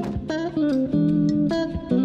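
Background music carried by plucked guitar notes.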